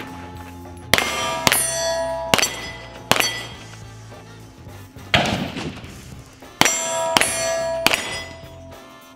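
Pistol shots fired at irregular intervals, about eight in all, each a sharp crack, several followed by a ringing tone.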